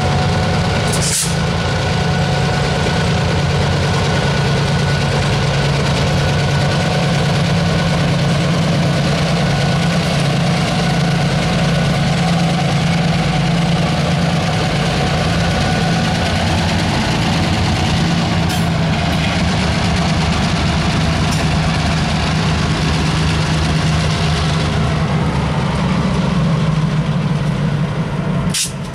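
EMD diesel switcher locomotives running as they pull slowly past with a cut of hopper cars: a loud, steady low engine drone with a faint steady whine above it. Two sharp clicks, about a second in and just before the end.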